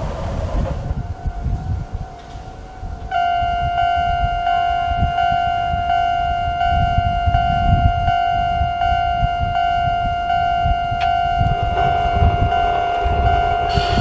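Japanese level-crossing alarm sounding its standard 'kan-kan' tone at an unusually slow tempo, about three strikes every two seconds. It starts loud about three seconds in, after the rumble of a passing tram fades in the first second.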